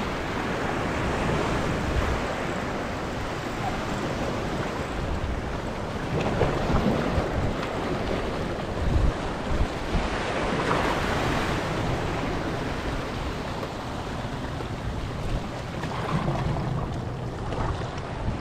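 Surf washing and breaking against a rocky shoreline in irregular surges, with wind buffeting the microphone.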